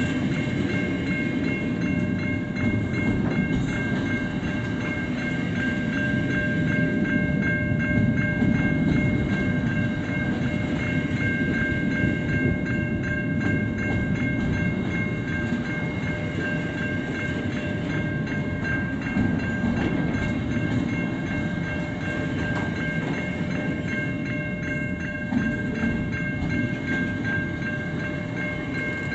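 Double-stacked container wagons of a long freight train rolling past at close range, a continuous low rumble of wheels on rail. Steady high ringing tones sit over it.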